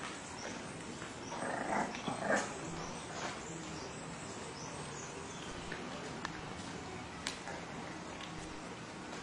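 Puppies giving a few short cries, bunched about two seconds in, over a steady background hiss, with a single sharp click later on.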